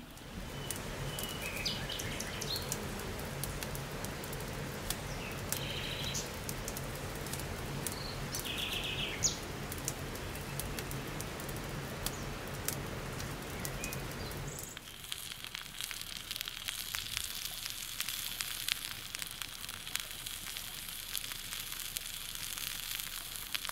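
A wood campfire crackling, with birds chirping now and then. About 15 seconds in, the sound changes to a brighter hiss with thicker, sharper crackles.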